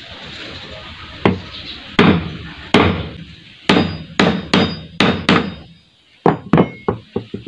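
Claw hammer striking the end of a metal bicycle spoke to flatten its tip: about eight sharp blows, spaced roughly half a second to a second apart, then a quick run of lighter knocks near the end.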